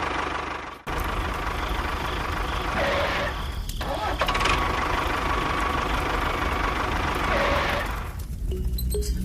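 A motor running steadily with a constant whine. It cuts out for a moment about a second in, then runs on and stops near the end, where music comes in.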